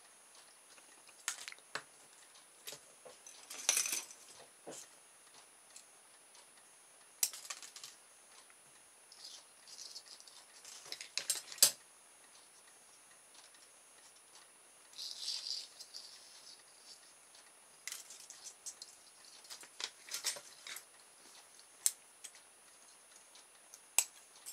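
Irregular clicks and rustles of small desk work: a steel ruler, scissors and thin coated copper wire being handled and cut, with the sharpest click a little before halfway.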